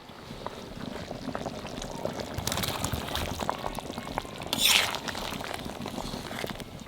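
Watery chicken curry bubbling in a cooking pot, with many small ticks and pops, and one brief louder splash about two-thirds of the way in.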